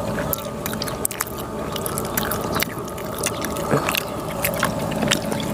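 Eating crispy jar-roasted rat: chewing and pulling the roasted meat apart by hand, heard as many irregular short, crisp clicks and crackles.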